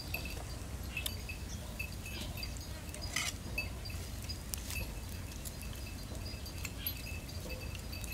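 Outdoor ambience: short high chirps repeating irregularly over a steady low rumble, with a few sharp clicks and a louder rustle about three seconds in.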